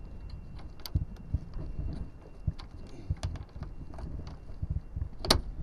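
Irregular light knocks and clicks of hands working at the aircraft's wing strut area, over a low wind rumble on the microphone; one sharper click comes near the end.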